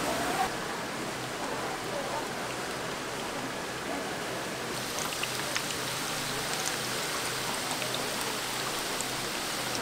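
Food deep-frying in hot oil: a steady sizzling hiss, with scattered small pops and crackles from about halfway through.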